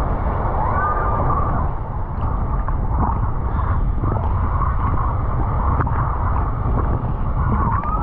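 Seawater sloshing and gurgling around a camera held at the water's surface, with a steady low rumble and scattered small splashes.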